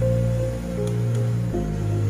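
Background music: slow held chords, changing about a second and a half in.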